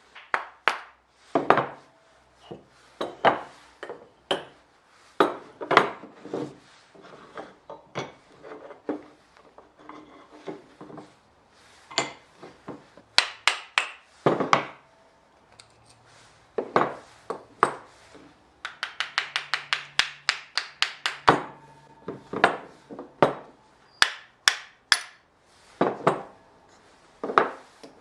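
A small hammer tapping on a Japanese plane (kanna), the usual way its blade is set and adjusted in the wooden body: single and paired taps at uneven gaps, some with a short ring. About two-thirds of the way through comes a quick run of about a dozen light taps, ended by a harder strike.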